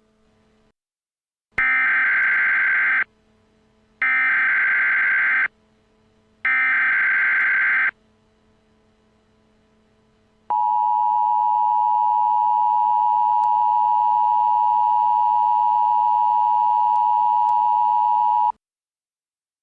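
Emergency Alert System tones: three screeching digital data bursts of about a second and a half each, a second apart, which make up the SAME alert header. After a pause comes the steady two-tone EAS attention signal, held for about eight seconds before it cuts off.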